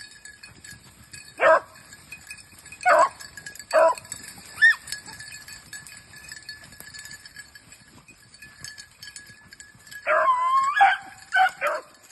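Beagles baying while running a rabbit: a few single bays spaced a second or two apart, then about ten seconds in a burst of quick bays with one long drawn-out howl.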